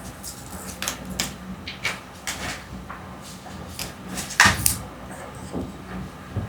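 Plastic toy packaging being handled by hand: a string of clicks, crinkles and snaps, the loudest a sharp snap about four and a half seconds in.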